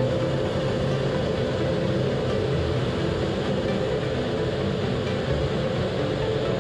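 Steady cockpit noise inside a Blue Angels F/A-18 in flight: an even rush of jet-engine and airflow noise from its twin turbofans, with a faint steady tone running through it.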